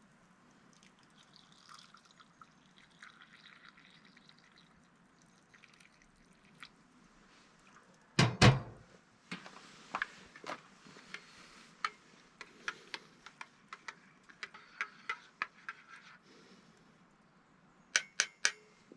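Wood being handled: a heavy thunk about eight seconds in, then a run of light, sharp knocks and clicks, and three quick clicks near the end.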